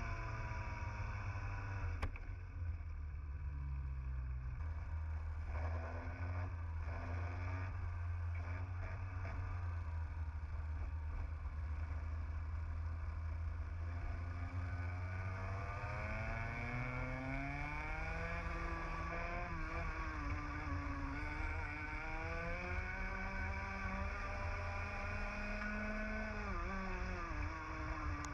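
Onboard TAG two-stroke kart engine racing: the revs drop at the start and stay low for several seconds, then climb from about halfway and rise and fall repeatedly through the following corners.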